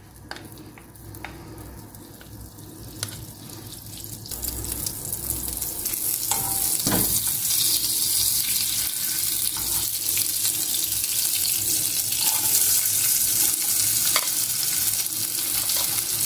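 Butter melting in a hot nonstick pan: a few light spoon scrapes and taps at first, then a sizzle that builds over several seconds and holds steady as the foaming butter is stirred.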